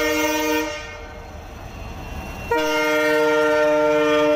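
Train horn sounding twice at one steady pitch: a blast that stops about a second in, then a long held blast starting about two and a half seconds in.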